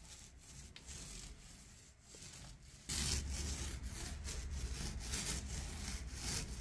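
Short-nap paint roller rolling gritty quartz primer onto a board: a noisy rubbing sound, faint at first and louder from about three seconds in, swelling and fading with the roller strokes.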